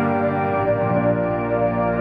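Live music: a long sustained chord in close harmony from wordless backing vocals over a steady ambient pad, with a low bass tone coming in early in the chord.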